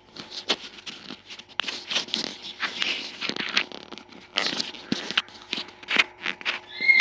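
Irregular rustling and scraping noises with a few sharp clicks, over a faint steady hum.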